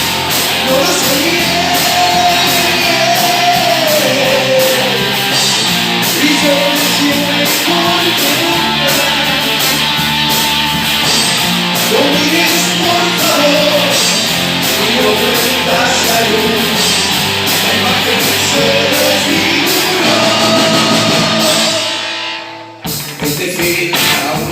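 Rock band playing live: electric guitars and a steady drum beat, with a singing voice on top. The music cuts out briefly near the end and then comes back in.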